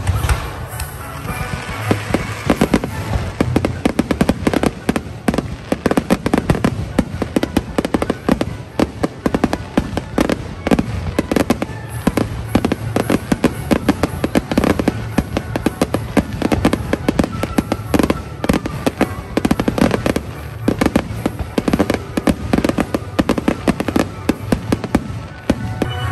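Fireworks barrage: a rapid, continuous run of bangs and crackles from shells bursting overhead, thinning out near the end, with music playing behind them.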